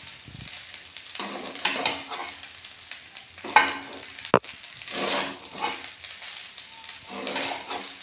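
Spatula scraping and turning rice pulao in a steel kadai, in irregular strokes, with a sharp metal clink about four seconds in.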